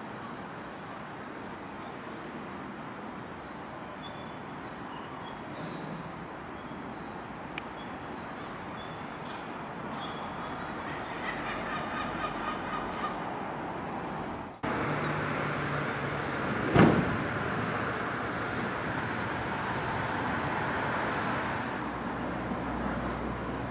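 Steady city hum with small birds chirping. About two-thirds of the way through it gives way abruptly to a louder train passing on a brick railway viaduct, with a steady high wheel squeal lasting a few seconds and one sharp knock.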